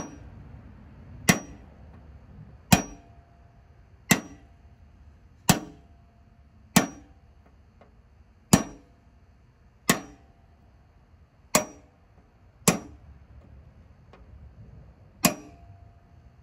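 Hammer striking a punch to drive an old spindle bearing out of a Kubota T1600 mower deck's spindle housing. Sharp metallic clangs come about once every second and a half, each ringing briefly.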